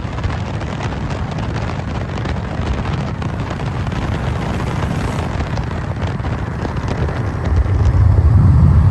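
Straight-piped BMW 540i turbocharged straight-six exhaust running with a loud, dense low rumble, which swells louder about three-quarters of the way through.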